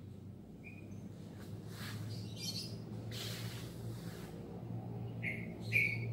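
A bird chirping briefly three times, once about a second in and twice near the end, over a steady low hum. Faint swishes come from the karate uniform as the kata is performed.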